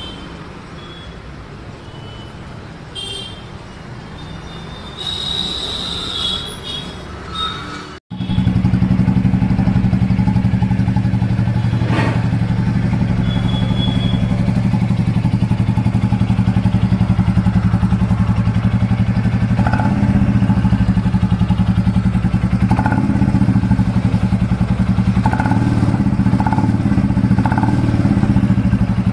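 Royal Enfield Classic 350's single-cylinder engine idling through its exhaust, a loud, steady beat that swells briefly a few times near the end. It starts abruptly about eight seconds in, after a quieter stretch with a few short high tones.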